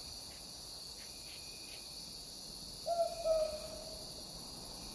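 An owl hooting once about three seconds in: a short first note, then a longer second note that drops slightly in pitch.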